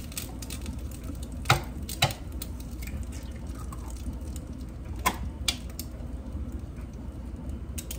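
Eggs being cracked against the edge of a bowl: two pairs of sharp taps, one pair about a second and a half in and another about five seconds in, over a steady low hum.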